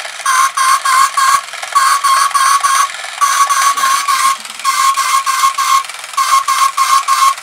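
The battery-powered motor unit of a TOMY Lay an Egg chicken game running, its mechanism giving loud, buzzing, pitched clicks about four a second in runs of four or five with short gaps. The owner puts the noise down to a piece pressing on a gear and flicking on it.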